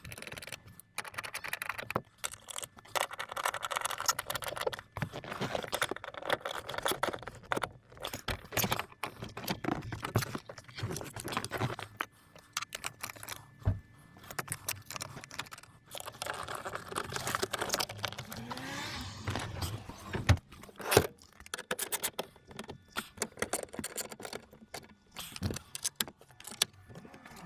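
Irregular clicking, rattling and scraping of hands working with cables, plug connectors and plastic dash parts while wiring up a car head unit.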